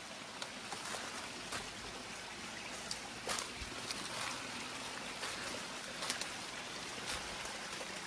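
A small creek trickling steadily, with scattered light crunches and clicks of footsteps on the leafy path.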